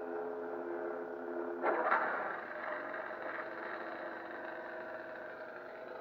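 Lightsaber prop's sound-font hum, steady and pitched, switching suddenly a little under two seconds in as the saber changes from its light side font to its dark side font. A swell leads into a rougher, fuller dark side hum that eases off a little and runs on.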